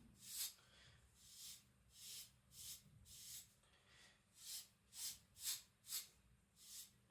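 A knife blade stropped on a trouser leg: about ten short, faint swishes, one per stroke of the edge across the cloth.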